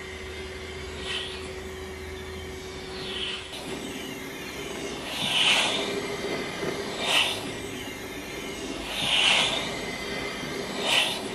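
Model beam engine running slowly, with a rushing hiss that swells and fades about every two seconds, once per stroke, as its valve gear switches the supply to the cylinder. A steady hum runs underneath for the first few seconds.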